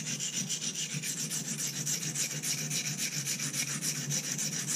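Steel knife blade of a Victorinox Tinker Swiss Army knife being rubbed back and forth on an oil sharpening stone, in quick, even scraping strokes. The steady gritty scrape is the sign of the stone cutting the steel, here reshaping the edge to raise a burr.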